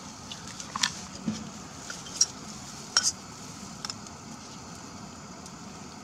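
Snow melting in a metal pot on a stove: a steady low hiss with scattered sharp ticks and crackles, several in the first four seconds, as the snow sizzles down into water against the hot metal.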